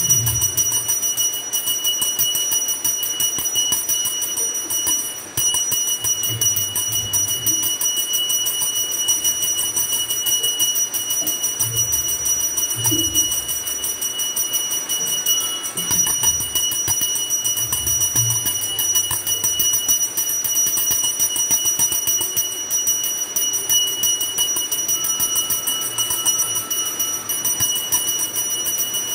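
A puja hand bell rung rapidly and without pause in worship, its high ringing tones steady throughout, with a few soft low thuds now and then.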